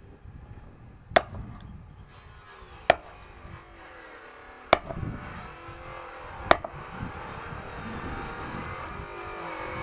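An axe striking firewood four times, about every second and three-quarters, each a sharp crack as the wood is split on a chopping block.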